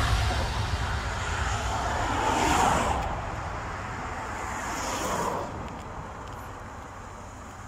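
Cars passing at highway speed, two whooshes that swell and fade about two and a half and five seconds in, over a steady low rumble of wind on the phone's microphone.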